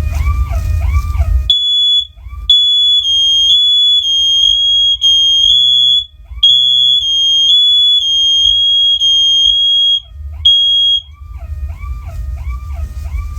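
Several interconnected hardwired OneLink smoke alarms sounding together: loud, high-pitched beeps about half a second long, slightly out of step with one another, stopping about eleven seconds in. Before the beeping starts and after it stops, a lower warbling tone sweeps up and down about twice a second.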